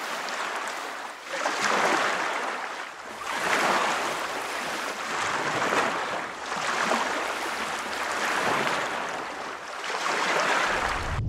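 Sea water surging and washing, a rushing noise that swells and eases every second or two.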